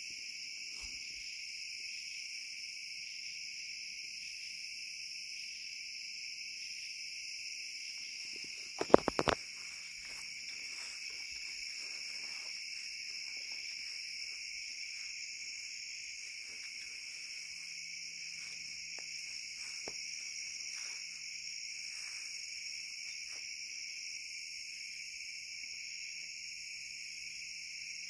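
A steady night chorus of crickets and other insects, with a quick cluster of four or five sharp knocks about nine seconds in.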